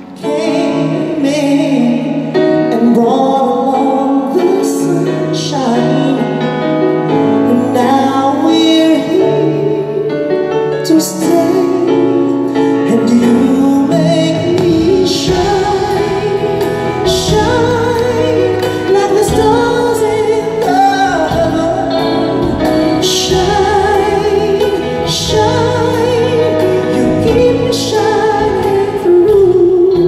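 Live singing with vibrato over a band's accompaniment on a concert stage. About halfway through, the accompaniment grows fuller, with a deeper bass and several sharp crashes.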